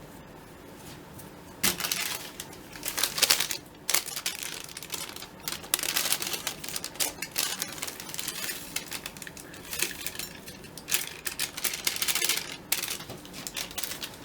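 Chopsticks clicking and scraping against a plastic microwave pasta container as the pasta is mixed: irregular clatters that start about a second and a half in and go on throughout.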